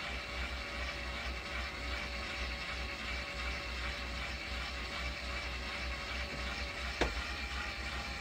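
LEGO M motor and its gear train running steadily with a geared whir as it raises the landing craft's bow ramp, with a single sharp click about seven seconds in.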